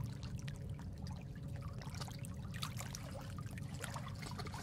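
Water trickling steadily: a low, even rumble with many small irregular ticks and splashes over it.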